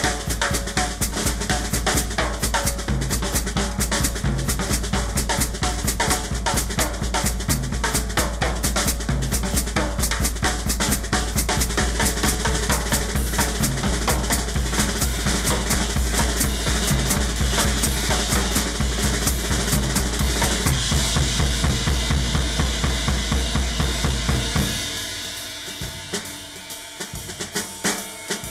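Drum kit played solo: fast, steady strokes on bass drum, snare and toms. About 25 seconds in it drops back to a few scattered hits.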